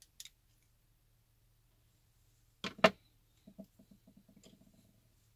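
Light clicks of a screwdriver on small parts of an RC truck axle being worked by hand, then two sharp knocks close together about two and a half seconds in, the loudest sound, followed by a quick run of light rattling ticks that fades out.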